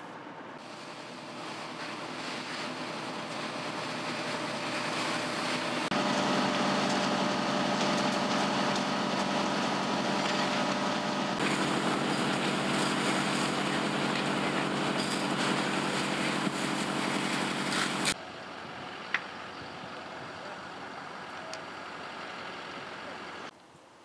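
Heavy truck engine running steadily, a low droning hum that builds over the first few seconds and cuts off suddenly about eighteen seconds in, leaving fainter background noise.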